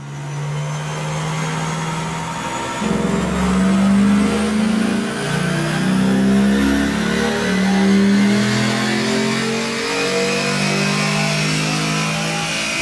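Chevrolet Camaro SS's LS3 V8, breathing through BBK shorty tuned-length headers, running hard under load on a chassis dyno with the revs building. It gets louder from about three seconds in, over a faint high whine that rises slowly with wheel speed.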